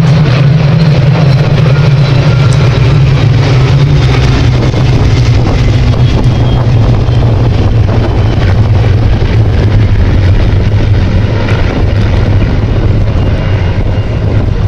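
A mass formation of Spitfire and Hurricane fighters flying past, their V12 piston engines joining in one loud, steady drone. The drone's pitch sinks slowly through the pass.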